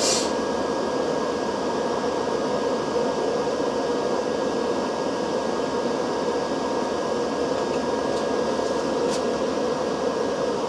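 Steady fan-like whir with a faint, steady high-pitched whine running through it, and a brief click at the very start.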